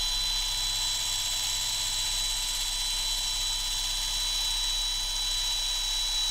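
Small electric drill running steadily with a high whine as it drills out the stripped screw of a car key fob.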